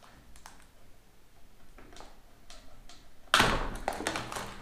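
Cardboard box packaging being handled: a few light taps and knocks, then about three seconds in a sudden loud scraping rustle of cardboard as an item is pulled out of the box, fading over about a second.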